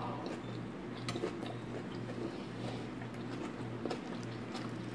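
A person chewing food quietly, with a few faint small clicks, over a steady low hum.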